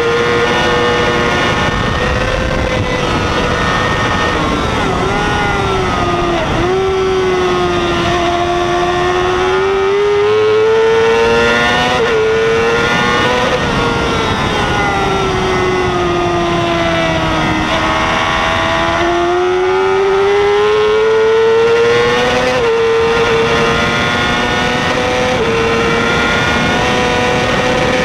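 2006 Yamaha R6's 600cc inline-four racing engine at high revs, heard onboard: its pitch sweeps slowly down and back up through the corners, with sharp drops at gear changes about twelve seconds in and again near the end, over wind rush on the camera.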